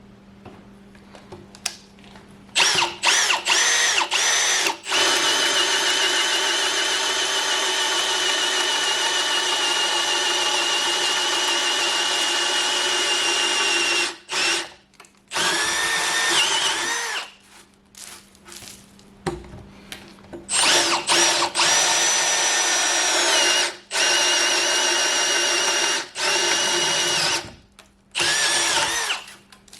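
Electric drill boring a hole through a wooden 6x6 timber. It runs in one long stretch of about eleven seconds, then in several shorter bursts with pauses between, its whine dropping a little as the bit bites.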